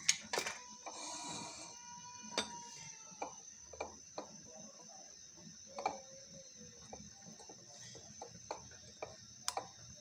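Metal spoon clicking and scraping against a bowl while stirring grated raw potato with egg and cornflour, in irregular light ticks.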